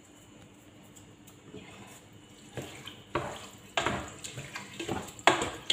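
Wooden spoon stirring wet rice and lentils in a metal pot: after a quiet start, a run of scraping, squelching strokes about twice a second from about halfway in.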